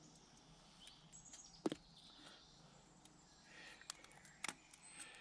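Near silence: quiet woodland background with a few faint, sharp clicks.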